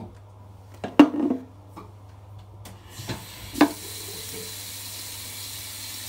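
A few knocks and clatters, the loudest about a second in. About three and a half seconds in, water starts running in a steady hiss and keeps up.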